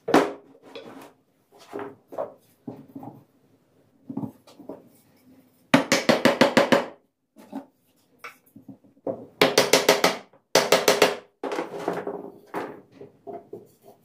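Wooden mallet knocking rough branch legs into the holes of a solid wood slab stool seat. One hard knock comes at the start, then three bursts of quick, evenly spaced blows, with lighter taps in between.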